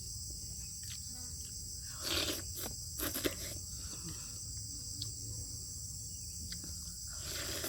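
Eating sounds from a bowl of beef bone soup, with a few short bursts of chewing and slurping about two and three seconds in. Underneath runs a steady, high chorus of insects chirring.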